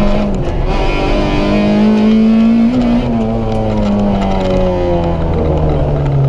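Citroën Saxo VTS rally car engine heard from inside the cabin: the revs dip briefly about half a second in, climb again, then fall steadily over the last three seconds as the car slows off the throttle.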